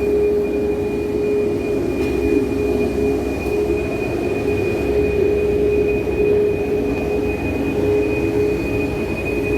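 Steady cabin noise of a jet airliner with its engines running: a rushing noise under a steady hum and a fainter, higher whine.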